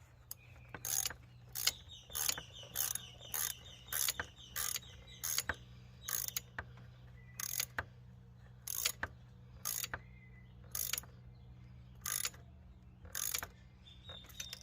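Hand ratchet wrench worked in short back-and-forth strokes, each stroke a brief run of clicks, tightening a fastener. The strokes come about one and a half a second at first, then slower and further apart.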